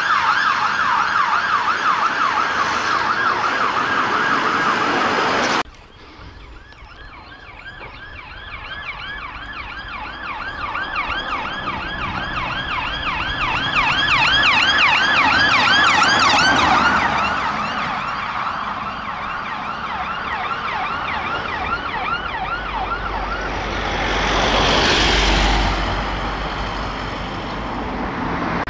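Emergency siren on a fast yelp, cut off abruptly about six seconds in. Then a police car's siren, also on a fast yelp, grows louder as it approaches, drops in pitch as it passes at about the middle, and fades. Near the end a vehicle drives past close by.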